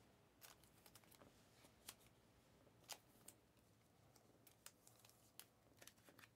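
Faint scattered clicks and soft slides of Panini Mosaic trading cards being handled and flipped through in the hands, otherwise near silence.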